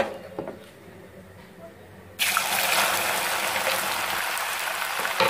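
A sharp knock, then about two seconds in, boiled colocasia (taro root) slices go into hot oil in a steel kadai and a loud, steady deep-frying sizzle starts suddenly and keeps going.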